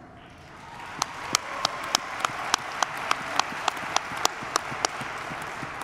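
Audience applauding, swelling in over the first second, with single loud claps standing out at a steady beat of about three a second.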